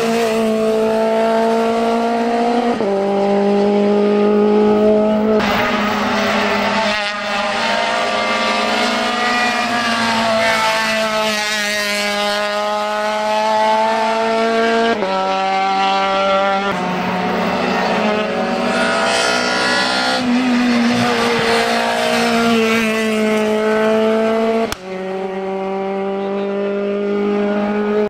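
Race car engine held at high revs on a hill-climb, its pitch climbing through each gear and dropping sharply at the upshifts, several times over.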